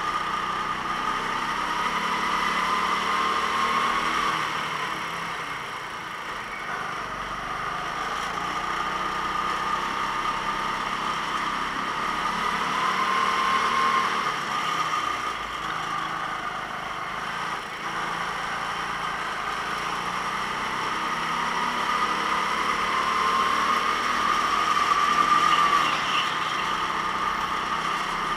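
Go-kart engine running at racing speed, its pitch and loudness rising and falling about every ten seconds as the kart accelerates and slows through the laps.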